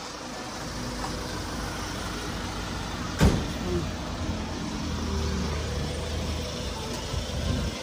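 Motor vehicle engine running amid street traffic noise, with a single sharp knock a little over three seconds in.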